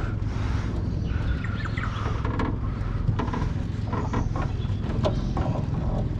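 Steady low rumble of a small aluminium dinghy's outboard motor, with birds chirping and a few sharp knocks and clicks.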